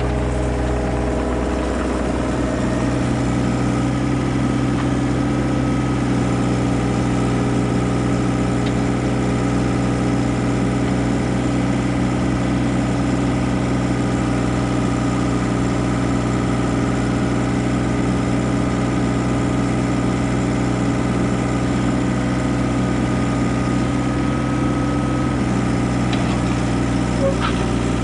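An engine idling steadily at an unchanging pitch.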